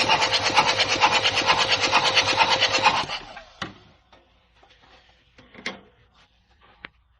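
A loud, fast mechanical rattle over a steady hum, which stops about three seconds in, followed by a few faint clicks.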